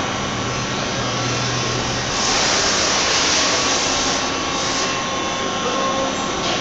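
Steady hum and hiss of running shop machinery, with a louder rushing hiss starting about two seconds in and lasting about two seconds.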